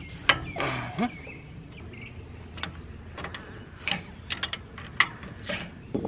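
Channel-lock pliers clicking and scraping on the metal of a Bobcat T650's female flat-face hydraulic quick coupler as it is worked loose for removal: a string of irregular sharp metal clicks and knocks, the loudest just after the start and about five seconds in.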